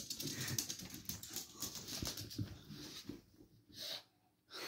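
Small dog play-growling in rough, breathy bursts while it worries a plush toy, dying down about three seconds in with two short bursts near the end.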